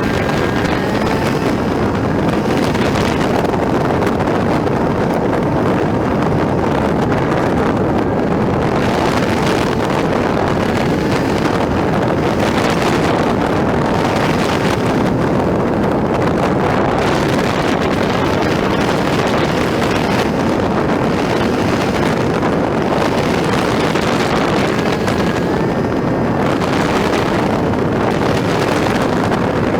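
Wind buffeting the microphone over the steady drone of a Suzuki Burgman 200 scooter's single-cylinder engine, cruising at road speed.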